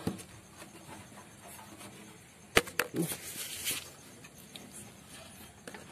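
A few sharp knocks and clicks over rustling handling noise, bunched together about halfway through, the first one the loudest.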